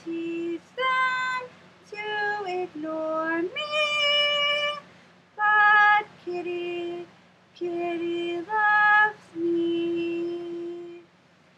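A woman singing a cappella, with no accompaniment: a melody of about ten short sung notes, with a longer held note around four seconds in and a long steady note near the end.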